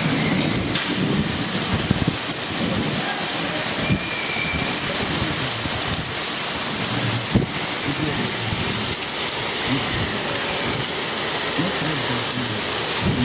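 A hailstorm with rain pelting down on tiled floors and walls: a steady, dense hiss of impacts, broken by a few sharper, louder knocks of hailstones about 2, 4 and 7 seconds in.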